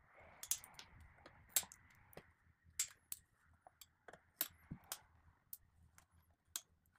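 Irregular light clicks and metallic clinks of hand tools and small parts being handled while motorcycle handlebar controls are taken apart, about a dozen sharp taps spread unevenly.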